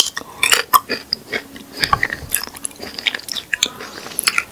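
A person biting into a raw rabbit-ears cactus pad and chewing it, with irregular crisp, wet crunches. The sharpest crunch comes with the bite right at the start.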